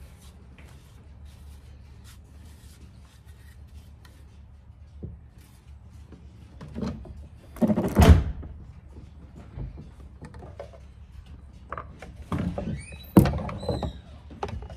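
Handling knocks and clunks as a tape-wrapped handlebar is fitted back onto a Stihl chainsaw on a truck tailgate: a few light taps, one loud thunk about eight seconds in, then a cluster of knocks near the end.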